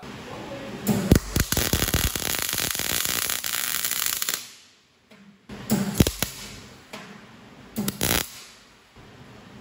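MIG welder arc crackling as it welds steel tubing: one run of about three and a half seconds, then two short bursts near the end.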